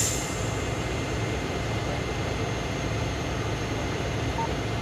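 Heavy trucks' diesel engines running steadily at idle, a low even hum.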